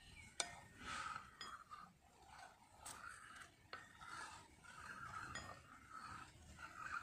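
Faint scraping and a few light clinks of a metal spoon against a bowl as it stirs liquid mercury under sulfuric acid.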